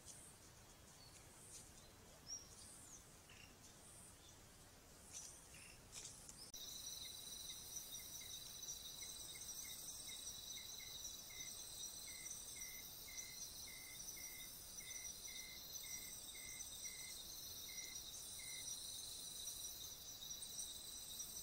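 Night-time insect chorus: several steady, high-pitched cricket-like trills, with a series of short, evenly spaced chirps at about two a second through the middle. Before it starts, about six seconds in, there is only faint forest ambience with a few scattered brief high chirps.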